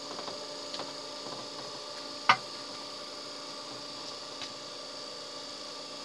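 Small benchtop lathe running with a steady hum of several fixed pitches, a few faint ticks, and one sharp click a little over two seconds in.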